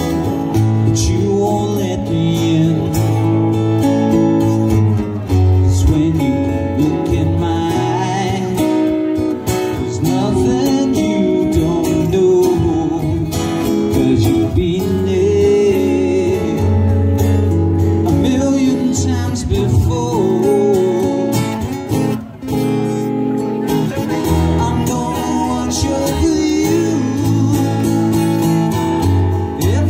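Two acoustic guitars strummed, with a man singing over them in a live performance.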